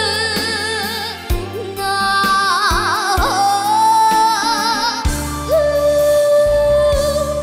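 A young girl singing a Korean trot ballad in a powerful voice over band accompaniment, holding long notes with wavering vibrato. In the second half she holds one long note.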